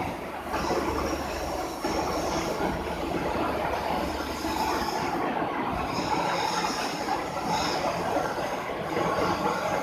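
Heavy-duty roll turning lathe running: a steady mechanical noise with a high metallic whine that comes and goes. A low hum underneath drops away about four seconds in.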